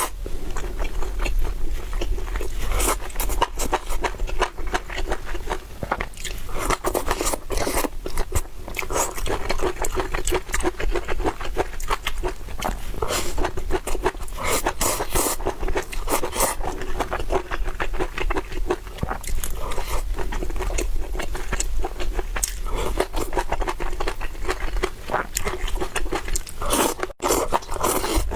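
Close-miked eating: steady chewing and crunching, with scraping, as a person eats a meal.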